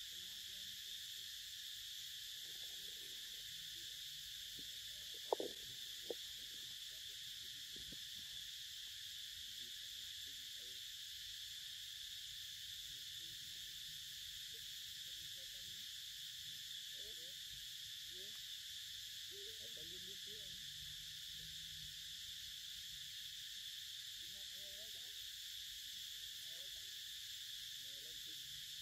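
Steady, high-pitched forest insect drone, with faint soft chewing and leaf rustles from a young macaque eating a mango on dry leaves. Two sharp clicks come about five and six seconds in.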